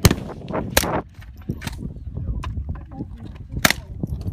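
GSG StG44 semi-automatic .22 LR rifle fired four times: three sharp reports about a second apart, then a longer pause before the fourth.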